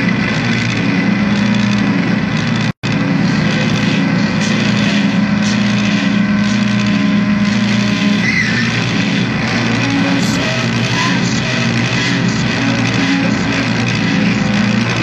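Loud, dense noise music: a thick, steady wall of noise over a low droning hum, cutting out completely for an instant about three seconds in.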